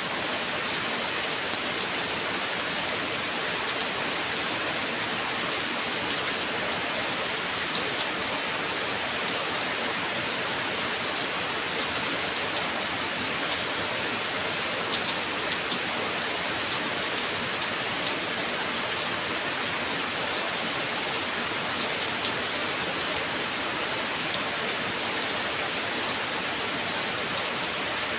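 Heavy rain falling steadily: an even, unbroken hiss with a few faint sharper drop ticks.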